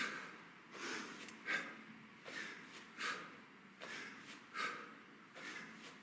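A man's forceful, rhythmic breathing while doing kettlebell swings: a sharp exhale about every second and a half, with a lighter breath between each.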